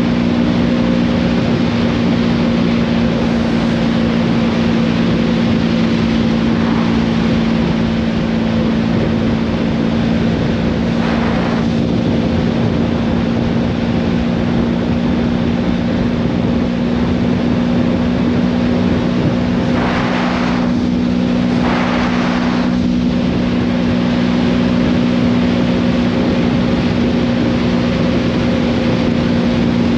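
Motorcycle engine running at a steady cruise, a constant drone that holds one pitch, with wind rushing past. A brief swell of rushing noise comes about eleven seconds in and two more around twenty seconds in.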